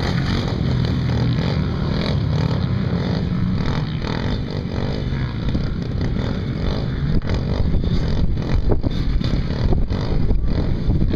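Dirt bike engines running and revving on a motocross track, a steady, wavering engine drone. Scattered clicks and knocks come in from about seven seconds in.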